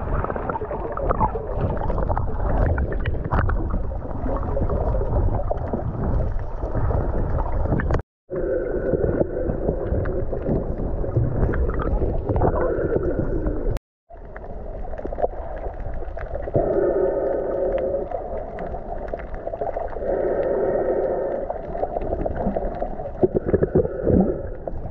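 Muffled underwater sound of water gurgling and bubbling around a snorkeler's camera, with wavering droning tones that come and go. It cuts out briefly twice.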